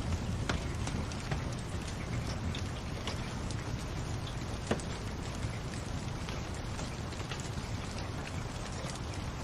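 Wood fire crackling in a fireplace: scattered sharp pops and snaps over a steady low rumble, the loudest pop about halfway through.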